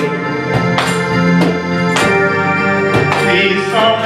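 Live band music: held electronic organ chords over a steady drum beat.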